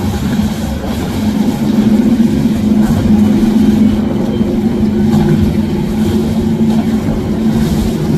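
Mercury outboard motor on a Nimbus boat running at speed, a steady engine drone, with the rush of water from the hull and wake.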